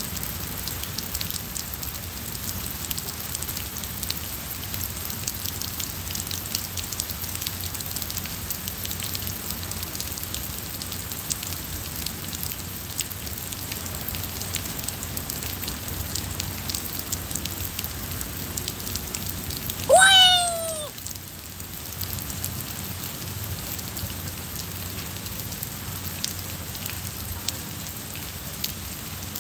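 Steady rain falling on paving and foliage, with a fine patter of drops. About two-thirds of the way through, a single loud animal call, about a second long, rising then falling in pitch.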